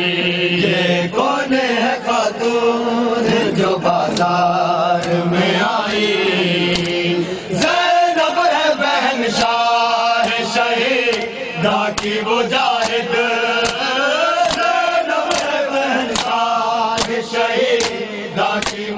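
Men chanting a noha, an Urdu mourning lament, in unison, over the rhythmic slaps of matam chest-beating. The hand strikes on bare chests come about twice a second and are clearest in the second half.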